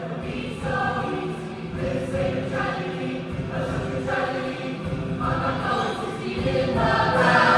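Choir singing held chords with accompaniment, swelling louder near the end.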